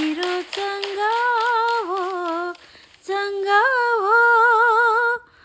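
A woman singing a melody unaccompanied, without clear words, in two long phrases of held notes that waver with vibrato.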